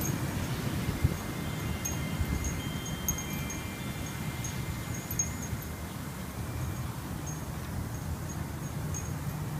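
Wind chimes ringing, several metal tones held and fading over seconds, with scattered short high ticks over a steady low rumble.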